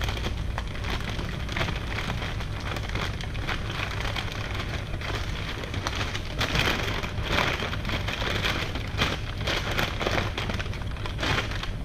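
Crinkling and rustling of packaging handled by hand, a dense run of irregular crackles that grows busier about six seconds in, over a steady low hum.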